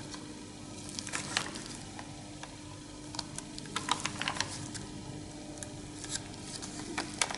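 Faint scattered crackles and rustles of a manuscript's parchment pages being handled and turned, over a faint steady hum.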